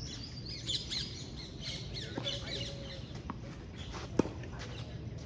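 Birds chirping in the surrounding trees while a tennis ball is struck back and forth: faint, distant racket hits, then a loud, sharp crack of a racket hitting the ball about four seconds in as the near player plays a forehand.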